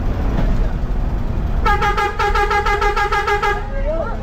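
Bus horn blaring for about two seconds, starting nearly two seconds in, a pitched tone that warbles rapidly at several pulses a second, over the steady engine rumble of the moving bus.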